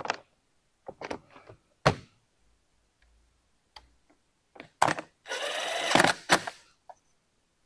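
A few knocks of a plastic generator side panel being fitted, then a cordless drill runs for about a second, driving in a panel screw, followed by a clunk.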